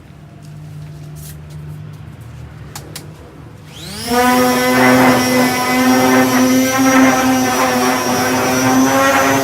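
An electric disc sander switches on almost four seconds in, its motor winding up quickly to a steady high whine and running at full speed. Before that there is only a faint hum and a few light clicks.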